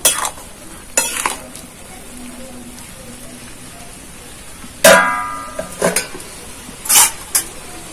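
Steel spatula scraping and knocking against a steel karai while ash gourd simmers in its own water with a faint sizzle. About five seconds in, a steel plate lid set on the pan clangs and rings, followed by two more loud knocks.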